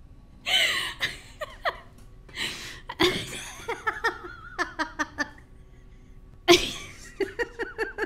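A person laughing and giggling: breathy bursts of laughter, each followed by a quick run of short giggles, about five a second.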